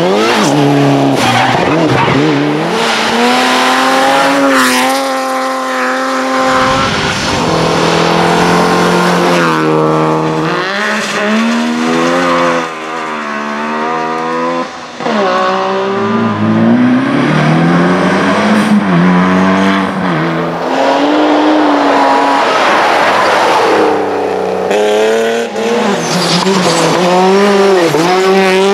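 Rally cars driven flat out on gravel, one after another. Their engines rev hard, the pitch climbing and then dropping at each gear change, over the hiss of tyres and gravel.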